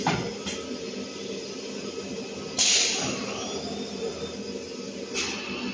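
Semi-automatic flat-bed screen printing machine running through a print cycle: a steady machine hum with a couple of clicks near the start, then a loud burst of air hiss about two and a half seconds in as the pneumatic cylinders lift the screen, and a shorter hiss near the end.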